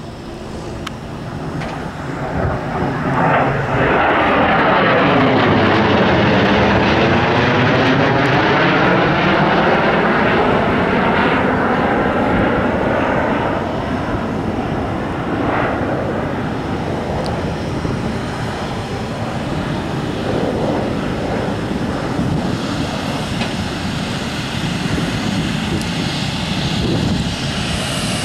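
Jet noise of a Panavia Tornado's twin RB199 turbofan engines as the jet passes overhead. It builds to its loudest about four seconds in, then slowly fades as the aircraft banks away.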